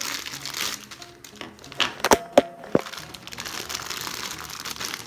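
Thin clear plastic bag crinkling as it is torn open and handled to free a coiled power cable, with three sharp crackling snaps about two seconds in.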